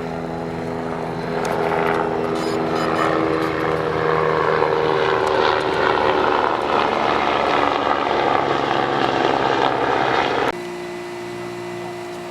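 DJI Inspire 1 quadcopter's rotors spinning, a steady propeller hum with several fixed tones over a rush of air; it grows louder about two seconds in and drops off suddenly near the end.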